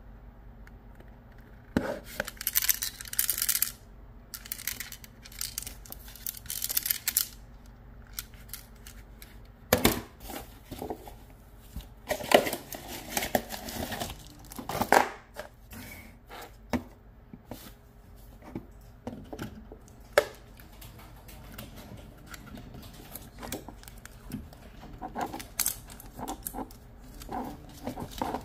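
Hands working with tools and wiring: scattered clicks, scrapes and rustling, busiest in two stretches early and mid-way, over a faint steady low hum.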